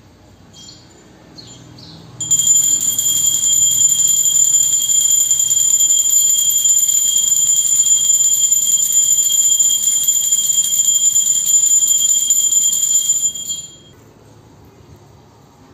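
A temple bell rung rapidly and continuously during worship at the shrine, a bright high-pitched ringing that starts about two seconds in and cuts off sharply near the end. A few single light strikes come just before it.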